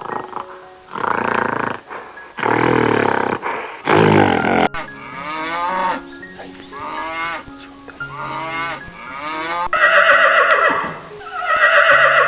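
Farm animal calls, several in a row, over background music with held notes. The calls come in three sections divided by abrupt cuts: a few long calls first, then a run of repeated falling calls, then two loud calls near the end.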